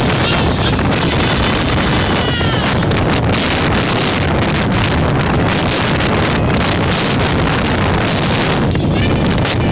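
Strong wind blasting across the microphone over heavy storm surf breaking on rocks, a loud, steady rumbling noise. A few faint high whistles slide downward now and then.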